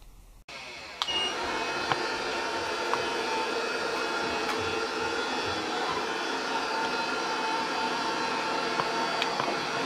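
Robot vacuum cleaner running with a steady whir. It starts about half a second in and steps up to full level a moment later, with a few light clicks over it.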